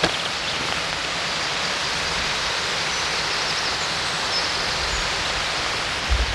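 Steady hiss of rushing water from a stream in a wooded ravine, with a few faint, high bird chirps over it.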